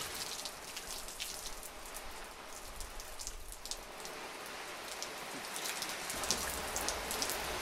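Spray from a garden hose falling like rain onto an open umbrella, a steady patter of drops that grows a little heavier near the end.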